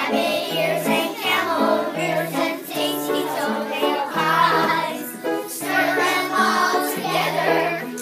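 A group of young children singing a children's song together, over a steady instrumental accompaniment.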